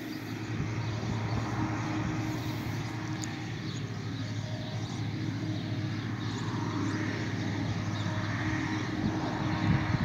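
Case IH combine and Massey Ferguson tractor engines running steadily: an even, low mechanical drone with a constant hum.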